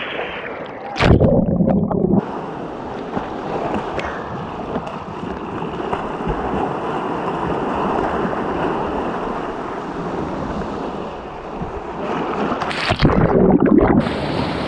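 Whitewater rushing steadily around a kayak, with loud splashes about a second in and again near the end. Each splash is followed by a short spell where the sound goes muffled as water covers the boat-mounted camera.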